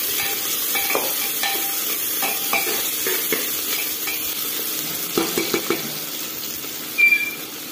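Sliced onions sizzling in hot oil in an aluminium pressure cooker while a spoon stirs them, scraping and knocking against the pot now and then. The onions are frying to a light brown. A brief high squeak comes near the end.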